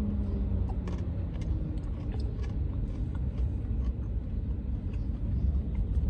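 Steady low rumble with faint, scattered short clicks.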